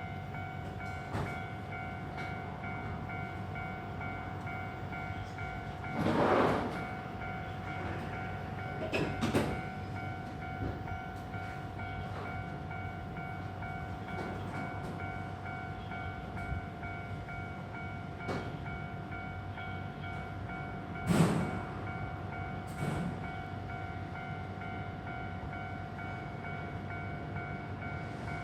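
Japanese level-crossing warning bell ringing in a steady repeating electronic ding while a Randen (Keifuku Electric Railroad) tram passes over the crossing with a low steady running noise. Several louder clanks of wheels on the rails come about 6, 9 and 21 seconds in.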